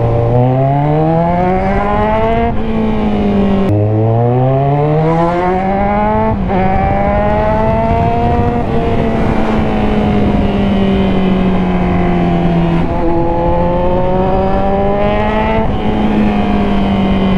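Kawasaki Z1000's inline-four engine through an Orion full exhaust, accelerating through the gears. The pitch climbs, drops sharply at an upshift a little under four seconds in, climbs again, then holds fairly steady at cruising speed.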